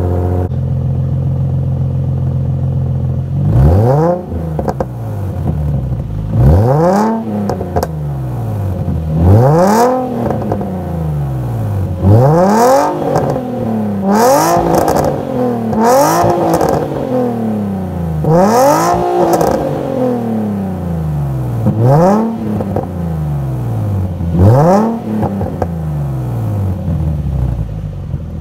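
Nissan 350Z's 3.5-litre V6 through a custom Y-to-X-pipe exhaust, idling and then revved about nine times, each rev rising and falling back toward idle. One catalytic converter on one side is bad, which the owner says makes it sound like something is wrong.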